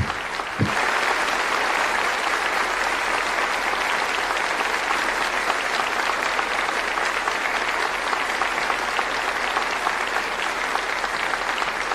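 Audience applauding steadily. The clapping swells a little under a second in.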